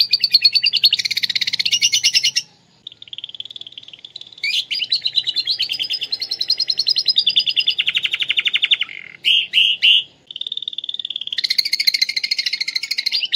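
Domestic canary singing a song filled with imitated lovebird phrases: fast, high trills in changing phrases, quieter for a moment about three seconds in, a lower trill and three short notes near nine seconds, then a steady note and a loud fast trill near the end.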